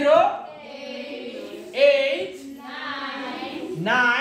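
A class of children chanting together in a drawn-out, sing-song tone, in about three long phrases, calling out the digits of a decimal number.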